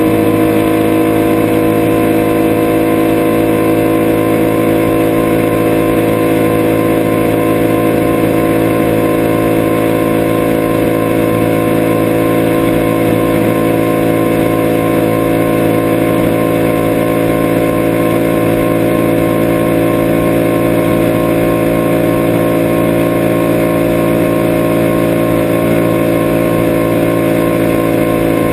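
Honda CRF1000L Africa Twin's 998 cc parallel-twin engine running steadily while riding at highway speed, heard from on the bike. Its pitch eases down slightly over the first dozen seconds, then holds steady.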